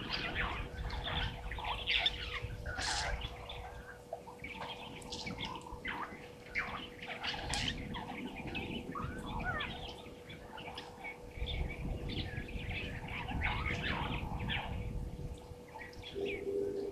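Wild birds chirping and calling, with many short, overlapping calls, over a faint steady hum and a low rumbling noise that comes and goes.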